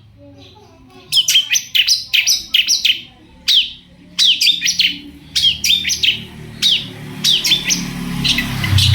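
Long-tailed shrike (cendet) calling hard in rapid runs of sharp, downward-slurred chirps. The calls start about a second in, with a brief pause a little past the middle.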